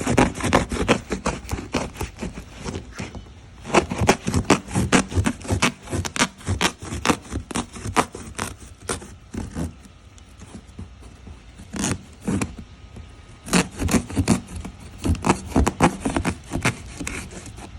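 A cardboard box and its packing being handled and pulled open: irregular scraping, rubbing and sharp knocks that come in bursts with short pauses between.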